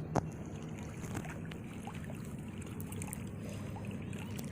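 Steady low rumble of waves and wind at the beach, with a couple of faint clicks.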